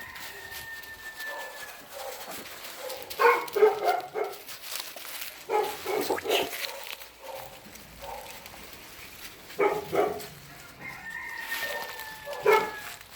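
Dogs barking in four short bursts of rapid barks. A thin, high, drawn-out tone that falls slightly is heard at the start and again near the end.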